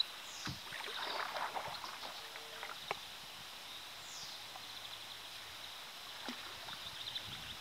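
Quiet splashing and trickling of river water around a kayak as it moves downstream, busiest in the first two seconds. A sharp knock comes about three seconds in, and another lighter one near the end.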